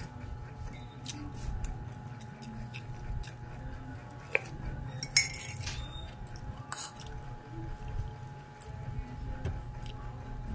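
Metal spoon and fork clinking against a plate while eating, with a few sharp clinks, the loudest about four and five seconds in, over a steady low hum.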